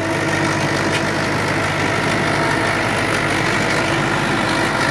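HMT 5911 tractor's diesel engine running steadily while working a super seeder in the field.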